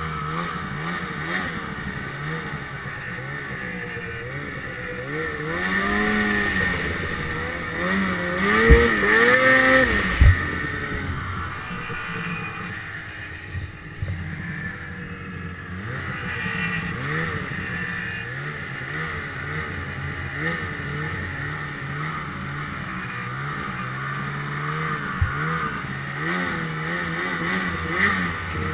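Ski-Doo Summit XP 800 snowmobile's two-stroke engine being ridden hard, its revs rising and falling over and over. The revs swing highest about eight to ten seconds in, where a couple of sharp thumps are heard.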